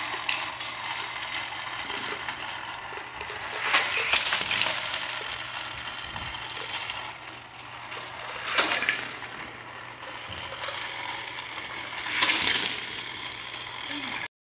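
Small die-cast toy cars rattling along an orange plastic loop track, in three short runs about four seconds apart.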